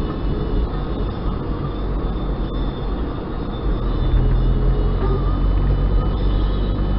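Road and engine noise of a car driving, heard inside the cabin: a steady low rumble that gets a little louder about four seconds in.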